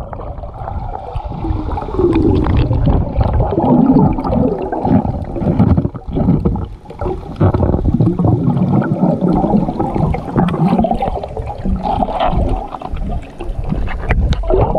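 Muffled sloshing and splashing of water heard through a GoPro's waterproof housing held underwater, with many irregular thuds and surges as the camera is moved about.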